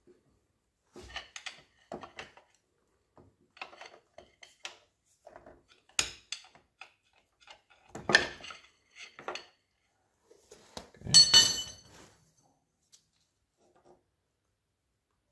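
Metal-on-metal clicks, taps and scrapes as a long screwdriver pries against a gear on a milling machine's feed gearbox, working the shaft over to free a bronze bushing. The loudest are a sharp clank about eight seconds in and a ringing metallic clatter around eleven seconds in.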